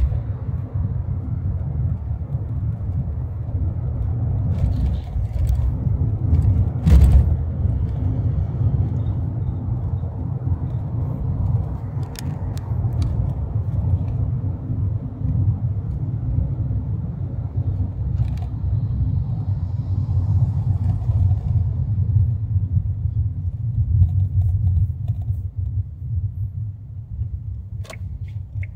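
Steady low rumble of a car driving, heard from inside the cabin, with a sharp knock about seven seconds in and a few light clicks later.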